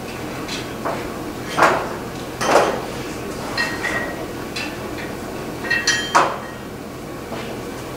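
Wrought-iron scrollwork and a hand hammer knocking and clinking against a steel anvil as they are handled, a handful of separate knocks with short metallic rings, the loudest about one and a half and two and a half seconds in and a quick cluster near six seconds.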